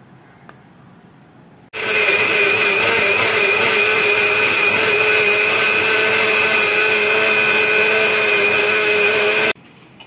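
Havells mixer grinder running at speed, grinding mint leaves, coriander, green chillies and garlic in its steel jar into chutney. It is a steady motor whine that starts suddenly about two seconds in, runs for about eight seconds and cuts off suddenly near the end.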